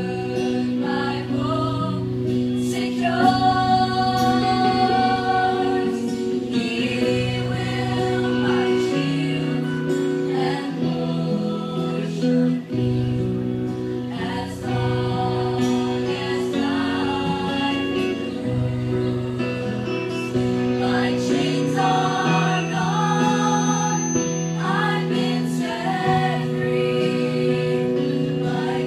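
A show choir singing a song in harmony, several voice parts holding chords that change every second or two.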